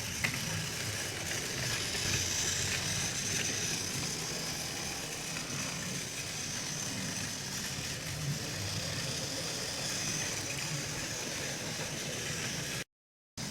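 Battery-powered TrackMaster Thomas toy engine running along plastic track: a steady motor whir with the wheels rattling over the track, broken by a short gap of silence near the end.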